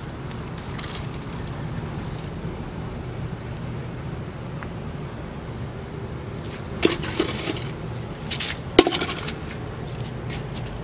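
Fishing gear being handled: a few sharp knocks and clicks about seven and nine seconds in, over a steady low hum and a constant high-pitched whine.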